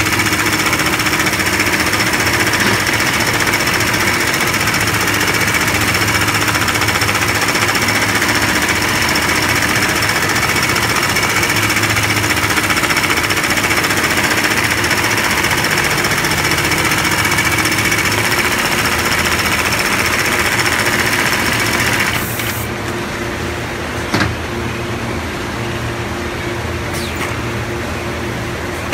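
Automatic FIBC loop-attaching sewing machine stitching a blue webbing loop onto woven bulk-bag fabric: a fast, steady rattle of needle strokes with a high whine. About 22 seconds in the stitching stops, leaving a quieter hum and a single click.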